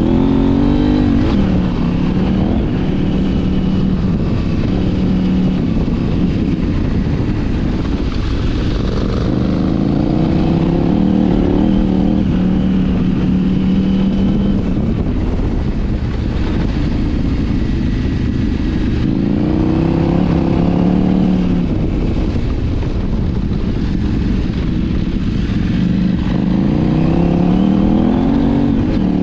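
KTM 790 Adventure R's parallel-twin engine heard from the rider's seat, revving up and down with the throttle several times and holding steady between the bursts, over constant wind and tyre noise.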